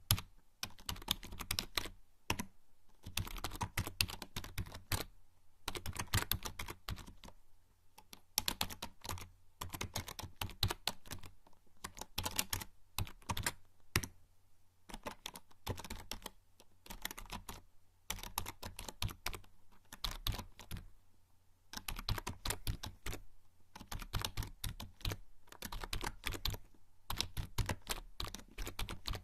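Typing on a membrane computer keyboard: a rapid, uneven stream of soft key clicks in bursts, broken by short pauses, with an occasional heavier key press.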